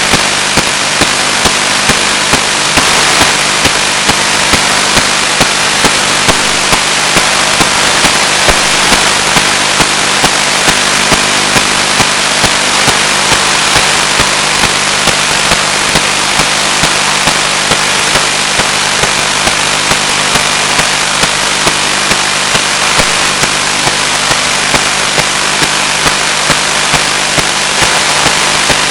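Loud, steady static hiss from an analogue FPV video receiver's audio channel, with a low steady hum and regular faint clicks a little more than once a second.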